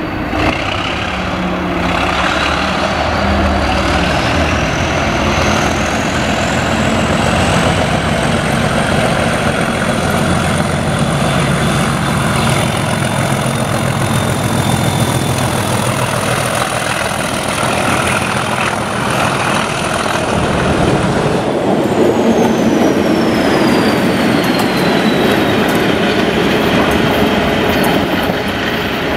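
Class 37 diesel locomotives hauling a test train past at speed: a low engine drone with a high turbocharger whistle that rises over the first several seconds. About 21 seconds in the sound changes abruptly, and a high whistle falls away as another pass goes by.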